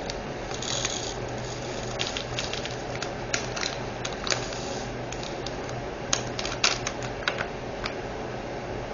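Irregular light clicks and taps, with a short rustle about half a second in: small plastic diamond-painting drills, drill bags and storage containers being handled. A low steady hum runs underneath.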